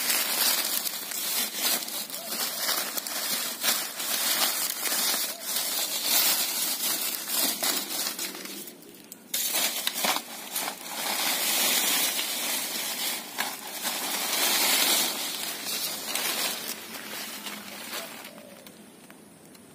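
Dry vegetation rustling and crackling, with many sharp cracks and snaps; it dies down near the end.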